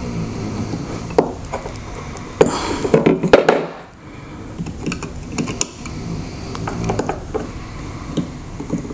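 A metal screwdriver scraping and prying at the plastic cell holder and cylindrical lithium-ion cells of a Ryobi 40V battery pack, working the cells loose. Irregular clicks and scrapes, loudest in a cluster about two and a half to three and a half seconds in.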